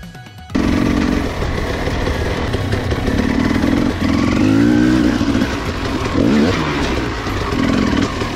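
Dirt bike engine running under the rider, its revs rising and falling again and again with throttle changes. It comes in loud about half a second in after a brief quieter dip.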